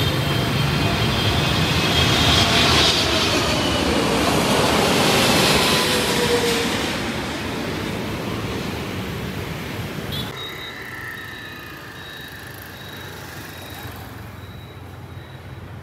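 Boeing 777-300ER's GE90-115B engines as the airliner passes low overhead on arrival: loud jet noise with a whine that falls in pitch, fading after about seven seconds. About ten seconds in it cuts to a quieter, steadier jet sound of an Airbus A321 on approach, with a thin high steady tone over it.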